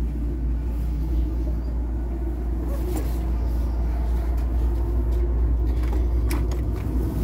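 Steady low drone of a ferry's machinery heard inside its passageway, with a few light clicks and knocks as a deck door is pushed open near the end.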